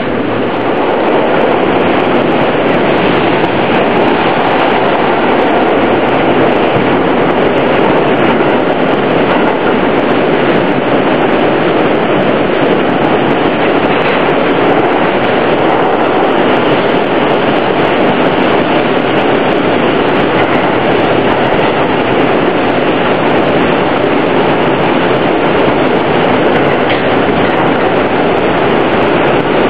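Steady, loud running noise of an R160A-2 subway car between stations, heard from inside the car: a constant rumble of wheels on rail.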